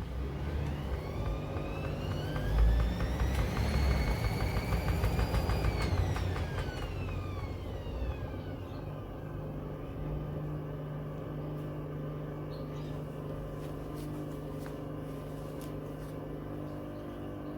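Hoover washing machine loaded with pieces of wood, its motor whining higher as the drum speeds up for a spin, with heavy low rumbling from the drum. About six seconds in the whine falls away over a few seconds as the drum slows. A steady low hum and a few clicks follow.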